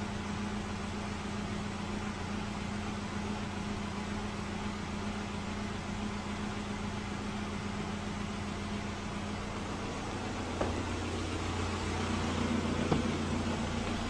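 A steady low machine hum, with a couple of light clicks near the end.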